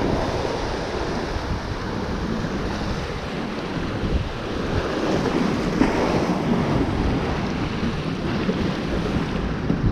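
Wind buffeting the microphone over the wash of surf breaking around the pier: a loud, steady rumbling rush that swells slightly about halfway through.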